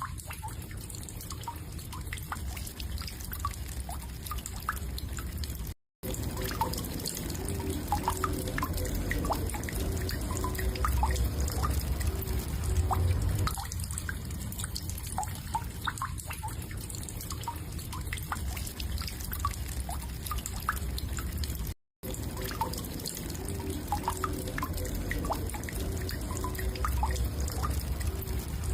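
Woodpecker calling in short, sharp, irregularly spaced notes over a background hiss and low rumble, looped as a bird-training recording. The track drops out to brief silence twice, about six and twenty-two seconds in, where the loop restarts.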